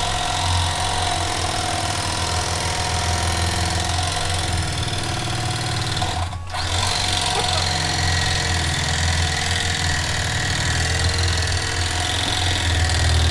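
Corded electric carving knife running steadily, its reciprocating blades, which are a little dull, sawing through the watermelon. The motor stops for a moment about six seconds in, then runs again.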